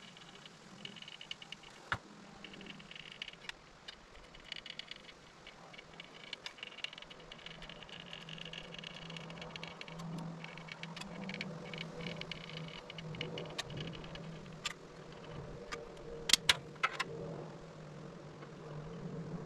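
Caulking gun run along wooden window trim: scattered clicks from the gun, with a cluster of sharp, louder clicks about 16 seconds in. A steady low hum sits underneath, growing from about halfway.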